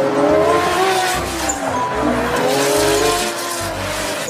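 Race car engine sound effect, the pitch revving up and down over and over, over background music with a steady beat.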